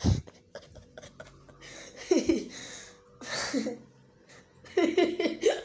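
A man's voice: two short vocal sounds, each falling in pitch, with quiet gaps around them, then talk-like sounds near the end.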